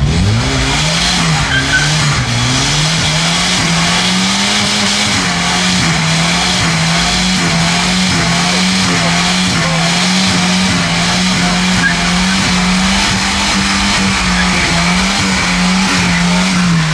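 A car doing a burnout, its engine held at high revs over a steady hiss of spinning, squealing tyres. The engine's pitch climbs over the first few seconds, then wavers up and down about once a second, and the revs drop away near the end.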